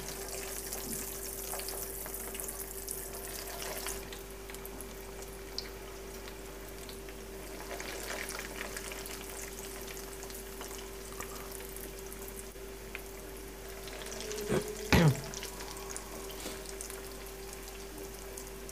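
Breadcrumbed chicken-and-cheese croquettes frying in hot oil in a pan: a steady quiet sizzle and crackle. A steady hum runs underneath, and a brief louder sound comes about three-quarters of the way through.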